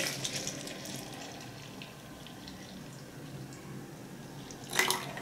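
Milk being poured from a steel cup into a plastic blender jar, a faint steady trickle. A short sharp knock sounds at the start and another near the end.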